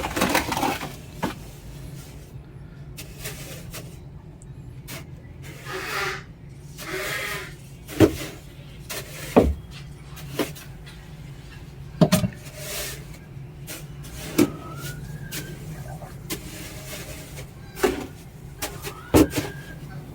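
Sand being scraped and shifted in a small plastic coop container, with irregular knocks of the tool against the container every second or two over a low steady hum.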